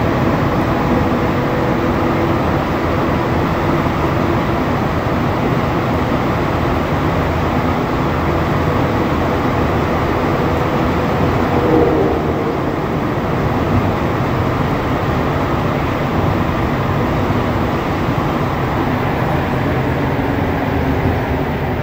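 Montréal Metro Azur rubber-tyred train running through a tunnel, heard from inside the car: a steady rolling rumble with a whine in several tones that fades out about halfway through, and a brief louder swell at about the same point.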